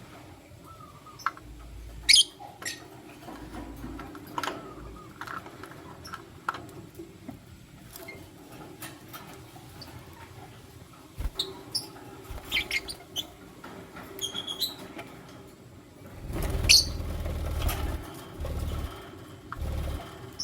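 Lutino lovebirds giving short, scattered high-pitched chirps and squeaks. A louder stretch of rustling and low thumps comes about sixteen seconds in.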